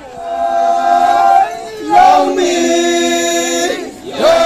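A group of Konyak Naga dancers singing a traditional chant together in long held notes: two drawn-out phrases with a short break, and a third beginning near the end.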